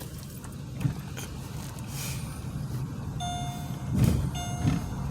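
A car driving slowly, heard from inside the cabin as a steady low rumble with a few soft bumps. From about three seconds in, a high electronic beep repeats roughly once a second, like a vehicle's reversing alarm.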